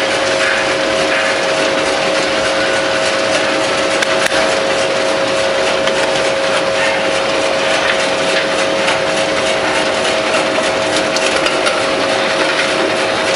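Pistachio slicing machine running: a steady mid-pitched whine over a continuous hiss as nuts are cut into thin slices.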